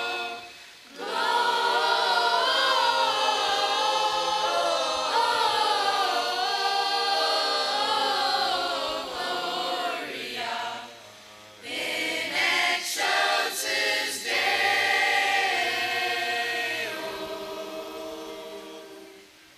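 A children's school choir of mixed voices singing a Christmas carol, with short breaks between phrases and a few short clipped notes in the middle; the singing fades away near the end.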